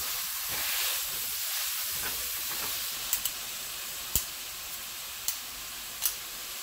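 Mexican chorizo sizzling as it fries in oil in a metal pot, while a metal potato masher and spoon stir it. From about three seconds in, the utensils knock sharply against the pot about half a dozen times.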